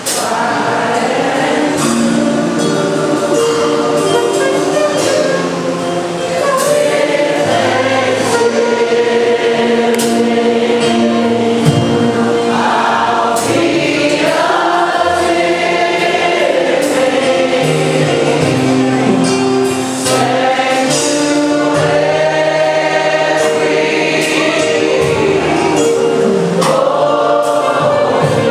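Church choir singing gospel music with instrumental accompaniment.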